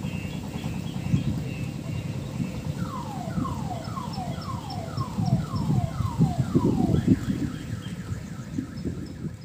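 Odong-odong village tourist train driving off, its engine running under an electronic alarm siren that cycles through patterns: a pulsing high tone, then a run of about eight falling whistles, two a second, then quick repeated chirps near the end.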